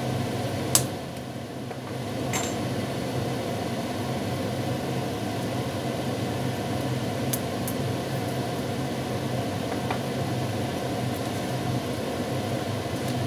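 A steady mechanical hum with an even hiss, like a kitchen appliance or fan running. A sharp click comes about a second in, and a few fainter ticks follow later as the wok is worked.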